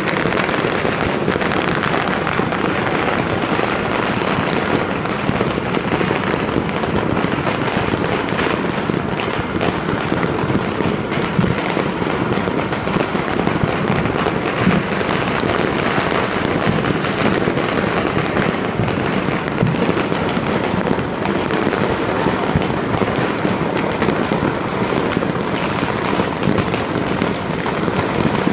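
Many fireworks and firecrackers going off at once across a city: countless overlapping bangs and pops merge into a steady crackle that never lets up.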